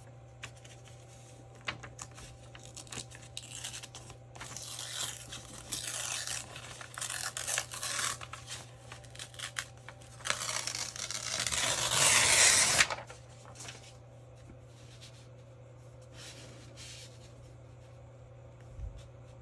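Paper being torn, in two stretches: a patchier one about a quarter of the way in, then a louder, steadier one about halfway through that stops suddenly. Small handling clicks fall around it.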